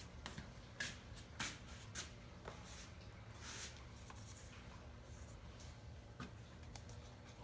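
Faint handling noises at a workbench: a few light clicks and rustles in the first few seconds and one more click near the end, over a steady low hum.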